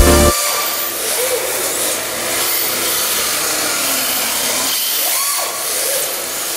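Electric RC drift cars sliding together on a polished concrete floor: a steady hiss of drift tyres scrubbing sideways, with a few brief whines that rise and fall.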